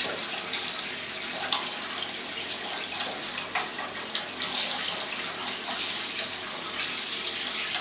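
Raw milk pouring in a steady stream from a large glass jar through gauze into a stainless steel cheese vat, as it is strained to catch any debris. The splashing pour runs steadily throughout.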